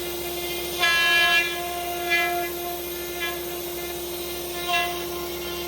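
CNC router spindle running with a steady high whine, its bit cutting into wood in short passes that each bring a louder, richer whine for about half a second, four times.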